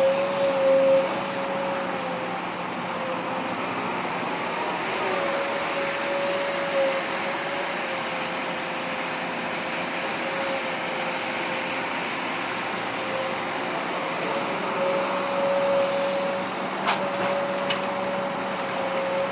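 Heavy diesel earthmoving machinery running steadily, with a high steady whine that wavers slightly in pitch. A couple of sharp clicks come near the end.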